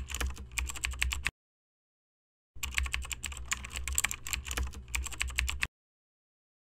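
Computer keyboard typing sound effect, rapid key clicks that go with on-screen text being typed out letter by letter. The clicks come in two runs separated by a gap of about a second, over a faint low hum.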